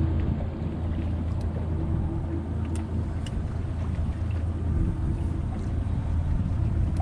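Boat engine running steadily with a low, even hum, alongside water noise against the hull.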